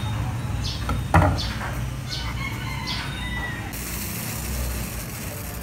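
Chickens in the background, a rooster crowing and clucking, over a steady low hum; one sharp knock about a second in.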